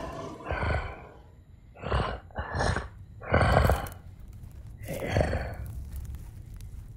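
A large dinosaur's heavy, breathy snuffles: five separate breaths about a second apart, the loudest one about halfway through, as the creature sniffs at the tent.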